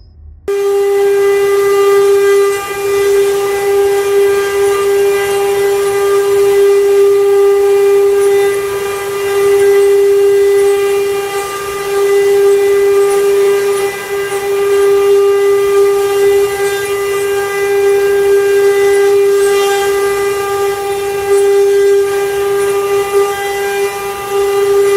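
CNC wood-carving router spindle running at constant speed, a loud steady high whine with an even stack of overtones over the noise of the cutter working the wood. It starts abruptly about half a second in, and the level dips now and then.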